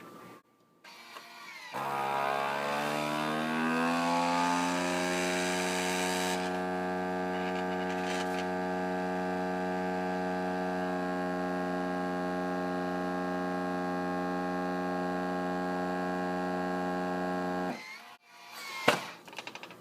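FoodSaver V3460 vacuum sealer's pump running through its accessory port to evacuate a marinating canister: a steady motor hum that climbs in pitch over its first few seconds as the vacuum builds, then holds level near the pump's limit of about 20 inches of mercury before cutting off suddenly. A couple of clicks follow near the end.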